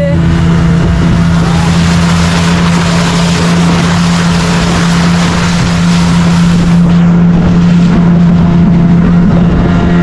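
Motorboat engine running steadily at speed, a constant hum under the rush of water against the hull. The high hiss of the spray eases about seven seconds in.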